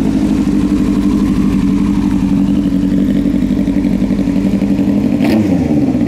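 Yamaha R1's inline-four engine idling steadily, with one quick blip of the throttle about five seconds in before it settles back to idle.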